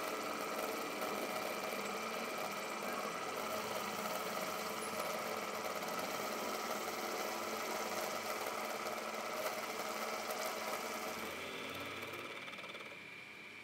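Milling machine end mill cutting into a metal block: a steady machining noise with several steady whining tones. It gets quieter near the end.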